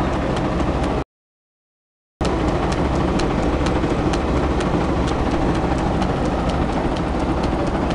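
Early-1900s threshing machine driven by a 10 hp electric motor through a belt, running steadily: a dense mechanical whir and rattle with a light tick about three or four times a second. The sound drops out to silence for about a second near the start, then returns.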